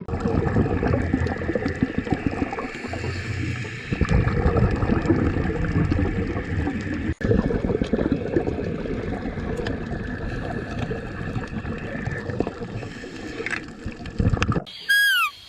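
Water splashing and gurgling, rough and uneven, with a short break about halfway. Near the end it stops and a falling, whistle-like animal call sounds a few times.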